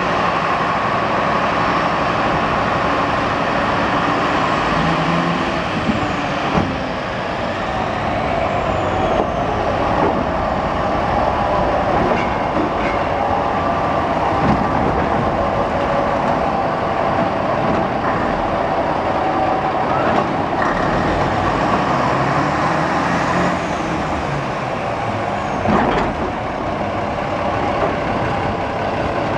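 Porter diesel switcher locomotive's engine running steadily while shunting, with a few short clanks.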